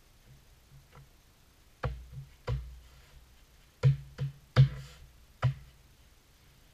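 A large ceramic floor tile being tapped down into its mortar bed: about six dull knocks, irregularly spaced, between about two and five and a half seconds in.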